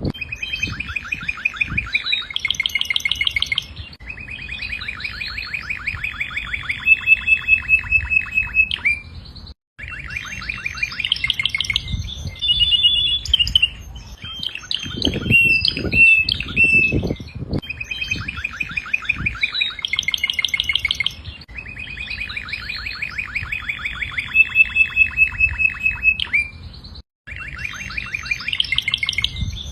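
Domestic canary singing a long, loud song of fast rolling trills and repeated chirps, broken twice by a brief dropout. A few low knocks come in about halfway through.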